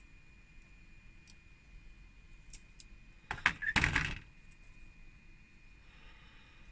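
Hard plastic miniature-figure sprues clattering against each other and the table as they are handled and stacked: a short burst of clacks about halfway through, with a few faint clicks around it.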